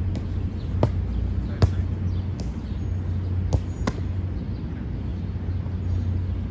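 A football being kicked and caught in goalkeeper practice: several sharp thuds within about four seconds, the loudest nearly two seconds in. Under them runs a steady low rumble.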